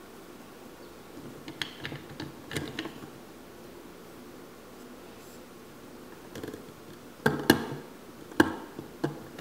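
Hard plastic clicks and knocks from a Play-Doh toy truck being handled: a few light clicks about two seconds in, then four sharp clicks between about seven and nine seconds in as its hinged plastic lid is worked open.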